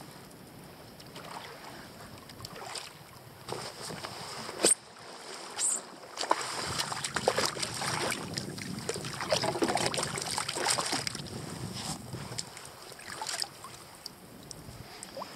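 Hooked fish splashing at the water's surface beside a kayak while a hand grabs it out of the water. Two sharp knocks about a second apart come first, and the splashing is loudest in the middle and dies away near the end.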